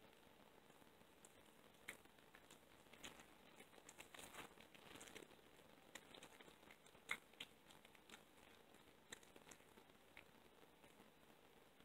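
A cat chewing raw meat: faint, irregular wet crunching and tearing clicks, busiest about four to five seconds in, with one sharper crunch about seven seconds in.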